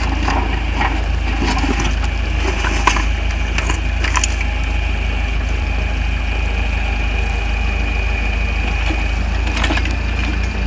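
Heavy machinery running steadily, with a deep engine drone, a thin high whine and a few sharp cracks or knocks.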